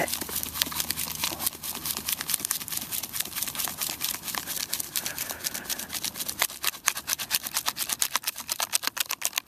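Digging a metal-detector target out of wet sand: a rapid run of sharp clicks and scrapes that come thicker and louder over the last few seconds.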